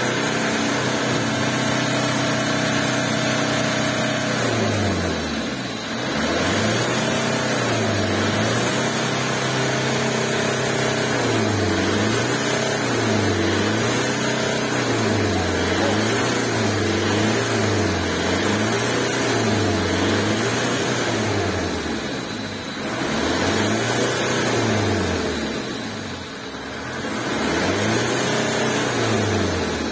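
A 2.9-litre turbo diesel engine in a 2001 Kia Carnival revving with a garden hose running water through its exhaust pipe, so that water sprays from the tailpipe as the pipe is flushed of carbon. The engine is held high for a few seconds and drops about five seconds in. It is then revved up and down roughly every second and a half, with a few slower revs near the end.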